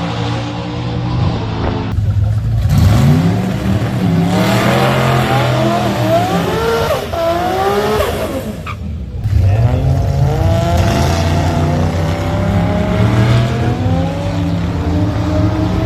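Race car engine accelerating hard at a drag strip, its pitch climbing repeatedly as it revs up, with a sharp drop about nine seconds in before it climbs again.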